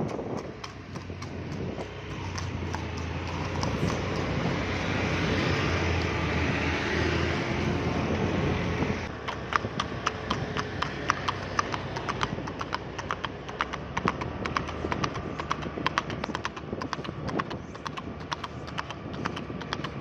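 A horse's hooves clip-clopping quickly on an asphalt road in a steady, fast rhythm. For the first half a steady low rumble partly covers the hoofbeats, and it cuts off suddenly about nine seconds in, leaving the hooves sharp and clear.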